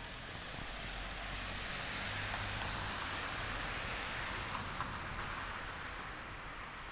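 A car passing on the street: a wash of tyre and road noise that swells to a peak a few seconds in, then fades away.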